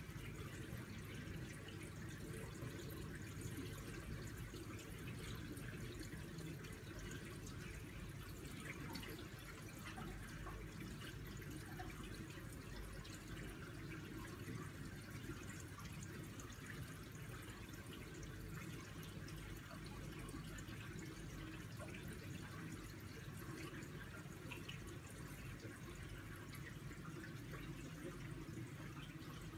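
Steady aquarium water noise, with filter water running and air bubbling and fine ticks of trickling throughout.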